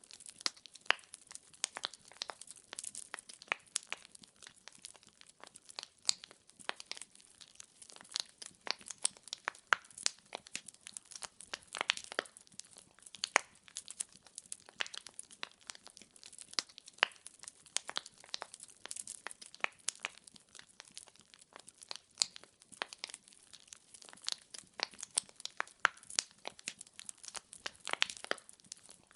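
Wood fire burning in a fireplace, its logs crackling and popping in quick irregular snaps over a soft hiss.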